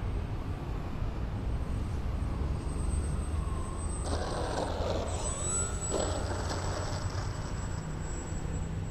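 Strong wind buffeting the microphone as a heavy low rumble, with the motors of an RC model N250 airliner in flight. The motors give a thin, steady high whine, and a little past halfway tones glide up and down as the plane passes.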